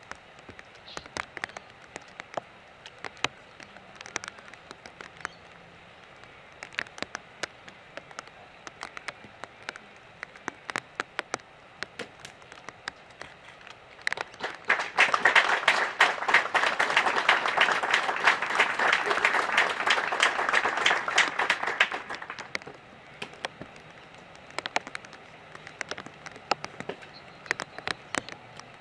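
Audience applause lasting about seven seconds, starting about halfway through. Scattered clicks are heard before and after it.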